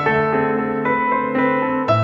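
Background music: a slow keyboard piece with sustained chords, new notes coming in about twice a second and a deeper bass note entering near the end.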